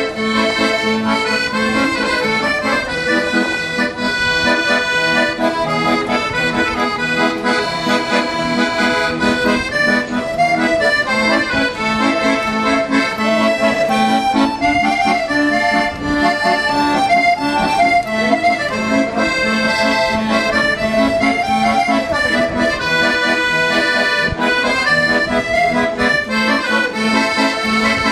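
Button accordion playing a tune, a held low chord under a melody that moves from note to note.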